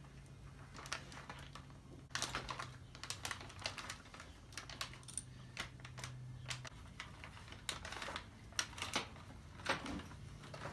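Light, irregular metallic clicks and clinks of a new roller chain being handled and broken to length with a chain breaker, over a faint steady low hum.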